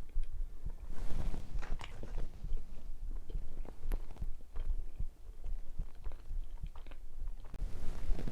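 Close-miked chewing and biting of a donut: irregular soft crunches and mouth clicks over a steady low rumble, with a louder bite about a second in and another near the end.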